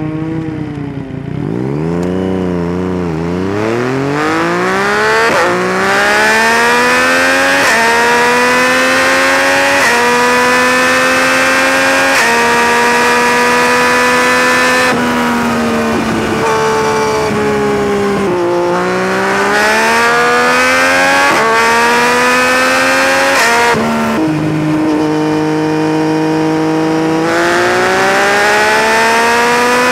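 Yamaha MT-09's 847 cc three-cylinder engine accelerating hard through the gears. Its pitch climbs steadily and steps down briefly at each upshift, about every two seconds. The engine eases off and pulls again about two-thirds of the way through and once more near the end, over constant wind rush.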